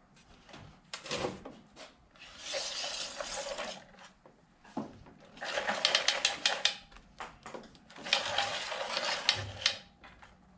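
Self-retracting power cord reel's spring-loaded drum being turned by hand to tighten its clock spring, giving three runs of fast clicking whir, each one to two seconds long.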